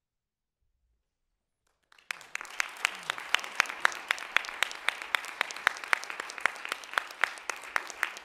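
Silence for about two seconds, then an audience bursts into applause, with some loud, sharp claps near the microphone standing out from the rest.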